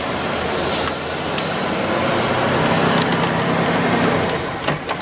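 Dump truck's carbureted engine running, under a steady rush of noise with scattered clicks and rattles.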